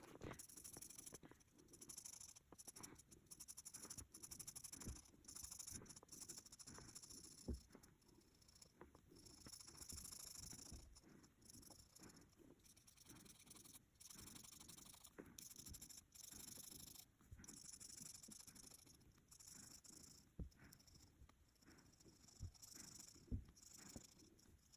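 Faint scratchy strokes of a coloring tool on paper, coming in short runs with brief pauses between them, and a few soft knocks.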